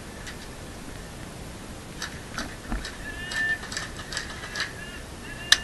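Airsoft gunfire: sharp, irregular clicks of shots and BB hits, bunched through the middle, with the loudest single crack near the end.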